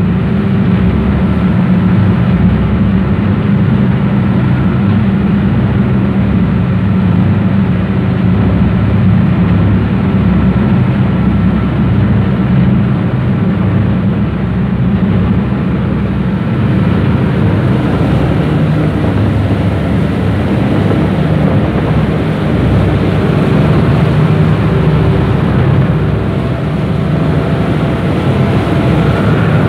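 Ferry boat's engine running steadily under way, a loud low drone, with the rush of churning wake water.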